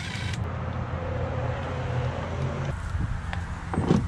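Cordless impact driver backing out the cylinder-head bolts on a Yamaha 70 outboard: a short burst of hammering at the start, then a steady whir that stops about two and a half seconds in.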